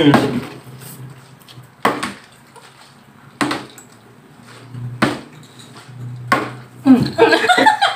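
Plastic bottle being flipped and landing on a glass tabletop: about five sharp knocks, one every second and a half or so. A voice, likely laughing, joins near the end.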